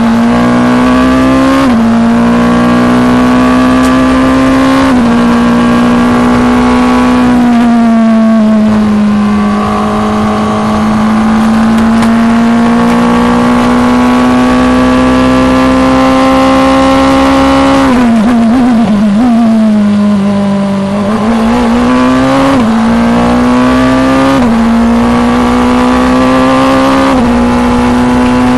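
F2 single-seater racing car engine at high revs, heard onboard with wind rush: the note climbs and steps down at upshifts early on, holds steady along a straight, then wavers and drops through downshifts under braking about two-thirds through before climbing again through the gears.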